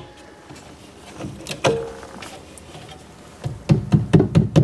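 One-handed bar clamp being fitted and tightened on cabinet face frames: a couple of knocks about one and a half seconds in, then a quick run of clicks and knocks near the end as the clamp is squeezed shut.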